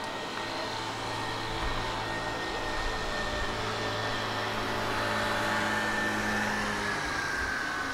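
Street traffic noise under a steady low hum, with a motor scooter riding past on the road; it is loudest about five to six seconds in, with a thin whine that falls slightly in pitch as it goes by.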